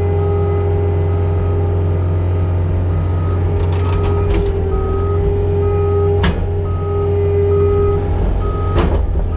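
Farm machine engine running steadily while its back-up alarm beeps at an even pace, moving the manure spreader. Three sharp knocks come at about four, six and nine seconds in.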